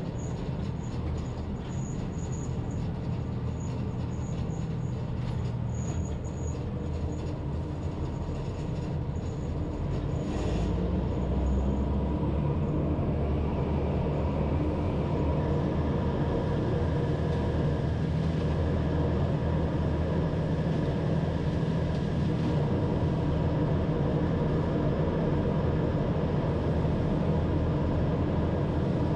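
Leaf vacuum machine running steadily as it sucks up leaves. It grows louder about ten seconds in, and a steady whine joins it about halfway through.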